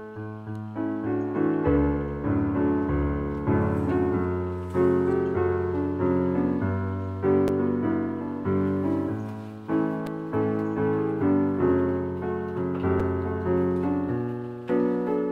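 Background piano music: a steady run of struck notes over lower bass notes.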